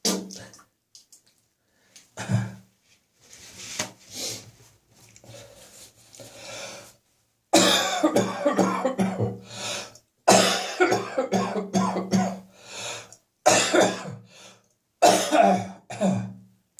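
A person coughing repeatedly and clearing their throat: a few short, separate coughs at first, then a harder, longer run of coughs from about halfway through.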